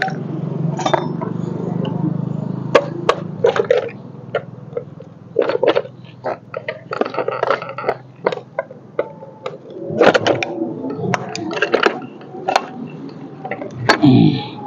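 Hand tools clinking, tapping and scraping on an Ape auto rickshaw's gearbox casing as it is being split open, with irregular metallic knocks. A short sound falls in pitch near the end.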